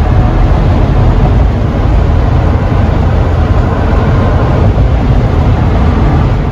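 Ford E-150 van driving at speed: steady, loud road and wind noise, heaviest in the low end.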